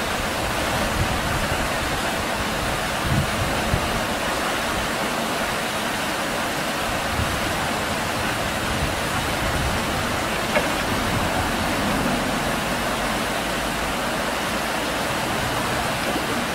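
Steady rushing noise of flowing river water.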